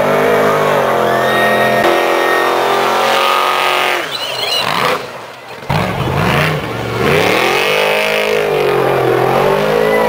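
Off-road desert race car's engine revving hard as it passes, its pitch rising and falling again and again, with a brief dip about five seconds in.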